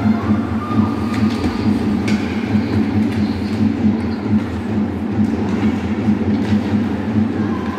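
A steady, loud low rumble with a fast pulsing beat, and a few sharp clacks of hockey sticks and puck on the ice, about two seconds in and again near the end.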